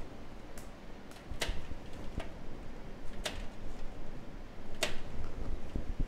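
Hard plastic clicks and cable handling as a connector is pushed onto a motherboard header: three sharp clicks, about a second and a half apart, over low rustling.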